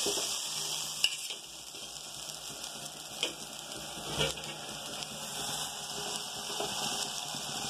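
Oil sizzling on a hot, empty tawa with a steady hiss, broken by a few sharp taps about one, three and four seconds in.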